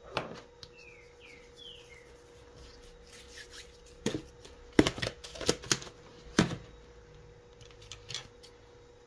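Irregular clicks and taps of hands, tools and a cold porcelain (biscuit) clay piece being handled on a work surface, with a cluster of sharper taps around the middle. A faint steady hum lies beneath.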